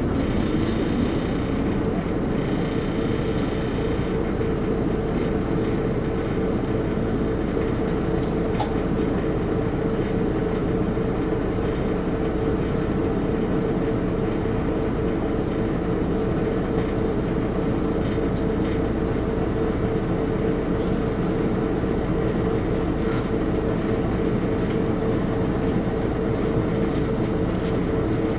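Volvo 8700LE bus's Volvo D7E six-cylinder diesel and ZF Ecomat automatic gearbox running at steady speed, heard as a constant rumbling drone with one whine held at an even pitch. Faint higher whistling tones fade out in the first few seconds.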